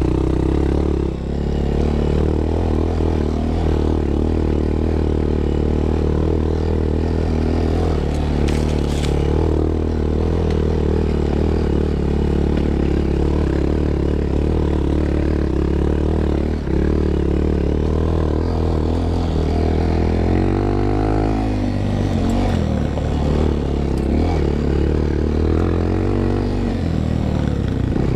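Honda Monkey's small single-cylinder engine running steadily under load on rough trail, with clatter from the bike over the ground; about twenty seconds in the engine note briefly slides in pitch.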